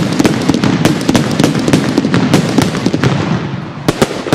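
Fireworks crackling: a dense, continuous run of rapid sharp pops and crackles, with a couple of louder cracks near the end.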